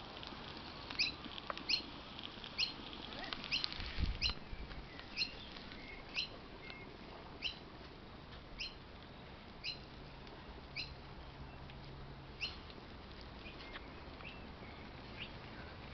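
A bird chirping over and over, each short high chirp sliding down in pitch, about one a second. A dull low thump comes about four seconds in.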